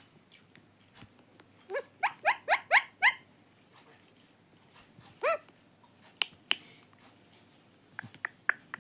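Pet ring-necked parakeet giving a quick run of five short calls, each sweeping upward in pitch, then a single similar call a couple of seconds later. Sharp clicks come in twice around the middle and in a quick series near the end.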